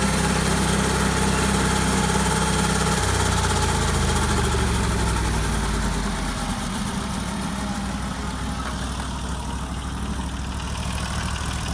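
Portable bandsaw mill's engine running steadily at speed, then winding down in pitch over a few seconds to a slower idle about halfway through.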